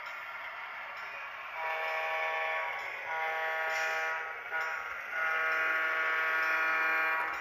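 Sampled Wabco E2 air horn from a Soundtraxx EMD-2 sound decoder in an HO scale EMD SW1 switcher, played through the model's miniature speaker: three blasts, the last the longest, as the locomotive approaches a road crossing.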